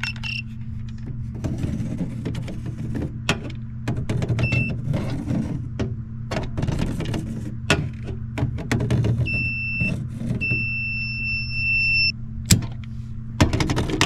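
Klein Tools digital circuit breaker finder receiver sliding and clicking over a panel of breakers, beeping with a high steady tone when it locates the transmitter's circuit: a short beep about four seconds in, then two more near the end, the last held for almost two seconds. A sharp snap follows as the breaker is switched off, over a steady low hum.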